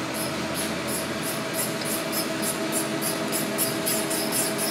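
CNC turning lathe's tool being jogged along the Z axis with the handwheel: a rapid, regular high-pitched ticking, about four a second, over a steady machine hum.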